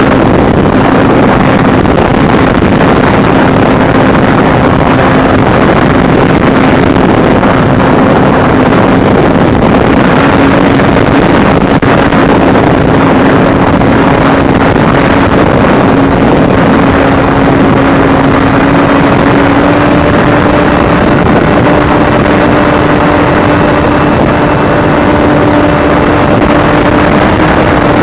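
FPV drone's motors and propellers running steadily with a loud rushing noise over a steady buzz, which rises slightly in pitch about two-thirds of the way in.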